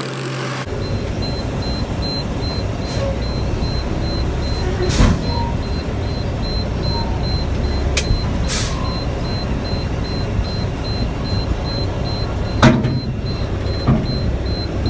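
Diesel dump truck engine running, heard from inside the cab as a steady low rumble, with a few sharp knocks and rattles from the truck.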